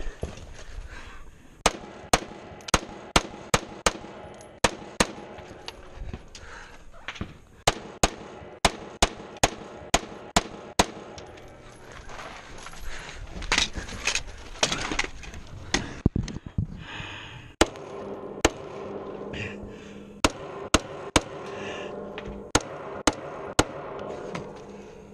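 Strings of rapid semi-automatic rifle shots, two to four a second, broken by short pauses with rustling and clatter between strings.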